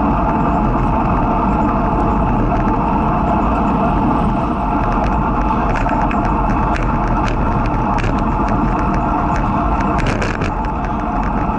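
Wind rush and road noise on a bicycle-mounted action camera while riding along a road shoulder. From about halfway through there are rattling clicks, thickest near the end, as the camera and bike jolt over rough seal.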